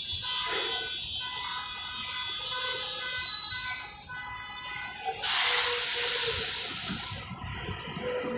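Street traffic with several steady high whining tones. About five seconds in, a sudden loud hiss of released compressed air fades away over about two seconds, typical of a trailer truck's air brakes.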